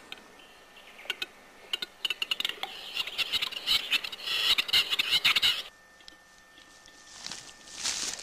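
Capercaillie cock's display song: single clicks that speed up into a rapid rattle and scraping grind, cutting off suddenly about five and a half seconds in. A shorter burst of scraping hiss follows near the end.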